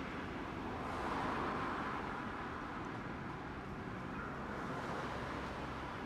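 Street traffic noise: a steady hum of road vehicles, swelling as one passes about a second in and again near the end.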